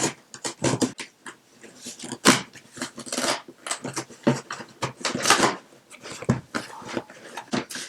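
A cardboard shipping box being cut and torn open: a run of short scratchy tearing and rustling noises, the loudest bursts a little over two seconds in and around three and five seconds in.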